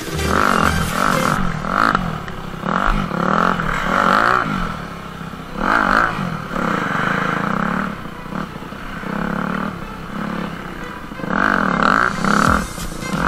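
Off-road dirt bike engine revving up and down over and over under riding, its pitch rising and falling with the throttle, with louder surges now and then.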